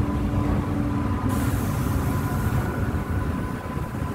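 Heavy marine diesel engine running, heard on board: a deep steady rumble with a constant hum over it. A brighter hiss joins about a second in.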